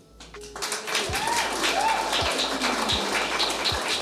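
A crowd clapping, starting about half a second in after a short hush, with a couple of brief shouts from the audience.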